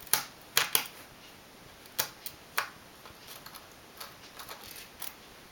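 Irregular small clicks and ticks of a jeweler's Phillips screwdriver working tiny screws out of a MacBook Pro's bottom case. Several sharp clicks come in the first couple of seconds, then lighter ticking.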